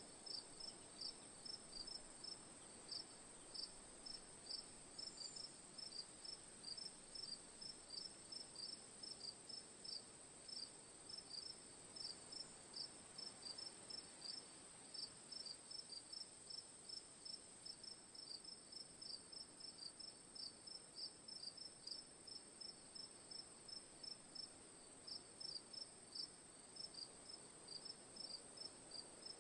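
Crickets chirping faintly and steadily, several short high chirps a second, over a continuous high-pitched insect trill.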